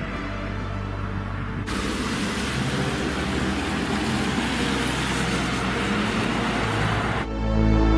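Camouflaged Porsche Taycan electric prototype driving past: steady tyre and road noise, which changes abruptly to a louder, wider hiss about two seconds in. Music with a keyboard sound starts near the end.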